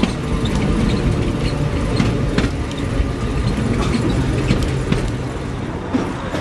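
Ride noise inside the Sóller tram, a vintage wooden electric tram: a steady rumble of the wheels on the rails with frequent rattling and clicking from the car.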